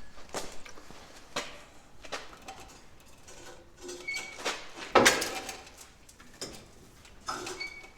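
Knocks and clunks of a small 5-horsepower go-kart engine being handled, the loudest about five seconds in, with a couple of short squeaks.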